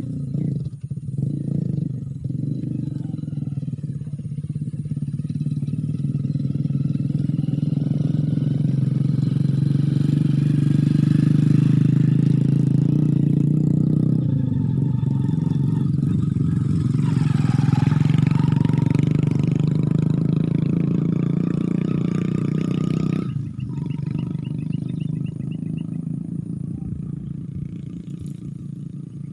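A steady low engine drone that grows louder toward the middle and drops off suddenly about 23 seconds in.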